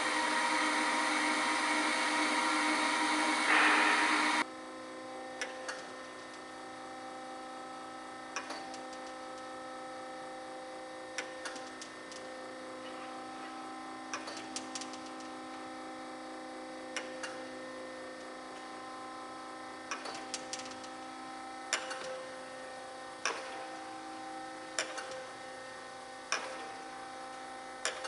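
DoAll G1 hydraulic surface grinder running. A loud steady rushing noise cuts off suddenly about four seconds in, leaving a steady machine hum with sharp clicks every second or two, more regular toward the end.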